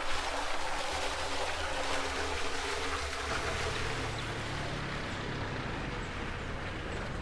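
Steady outdoor hiss, then from about three seconds in a car engine running with a low steady hum as a sedan drives slowly across a dirt yard.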